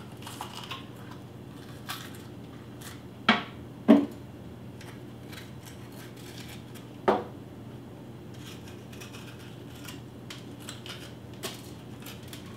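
Hands pulling apart and seeding a bell pepper at a kitchen sink: small crackling handling noises and three sharp snaps or knocks, the loudest about four seconds in, over a low steady hum.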